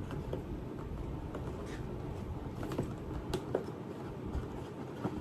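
A collector's box being opened and its packaging handled: scattered soft taps, clicks and rustles.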